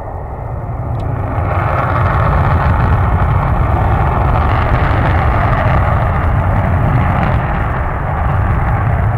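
F-16 fighter jet on its takeoff run in afterburner: a loud, steady roar that swells about a second and a half in. A faint high whine rides over it and fades out about halfway through.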